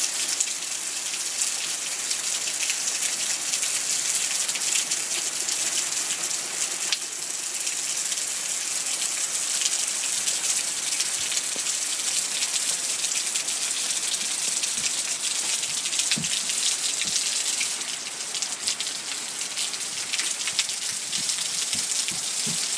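Heavy rain falling on wet brick paving, puddles and garden plants: a steady, dense hiss of countless drops.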